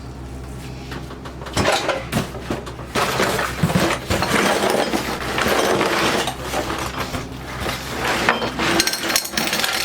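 Small metal sewing machine parts clinking and rattling against one another as a wrapped bundle of them is opened and handled, with the wrapping rustling. Quieter for the first second and a half, then a busy run of clinks and knocks.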